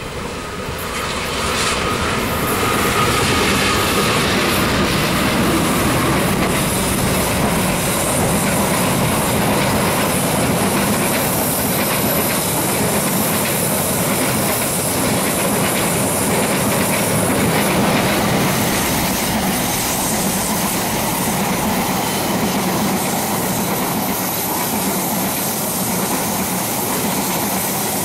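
A train passing close by on a curve, its wheels clattering over the rail joints with a faint high wheel squeal at times. The sound swells over the first couple of seconds as the train arrives, then holds loud and steady as the cars roll past.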